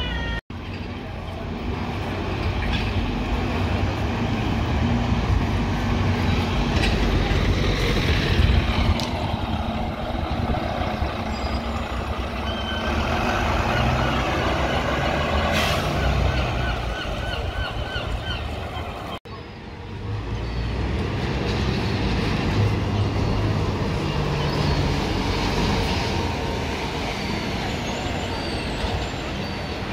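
Diesel bus engines running as buses pull in to and move off from a stop, with a short hiss of air brakes about halfway through. Street noise and passers-by's voices underneath.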